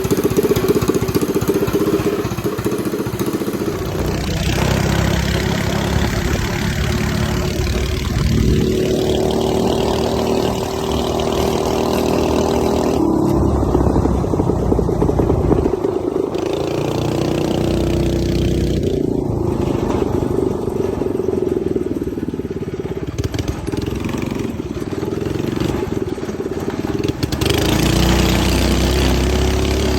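Coleman KT196 go-kart's small single-cylinder gas engine running, its revs rising and falling as it is driven.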